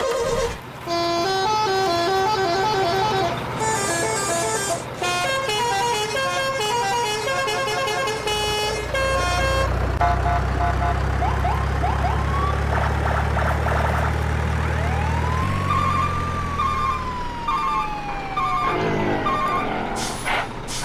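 A bright electronic melody of short beeping notes, then a low engine-like drone with siren-like rising and falling whoops and quick repeated beeps.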